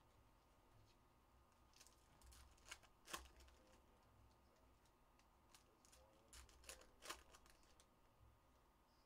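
Faint, scattered clicks and light rustling of trading cards being handled and laid on stacks on a table, with a few sharper taps around the middle.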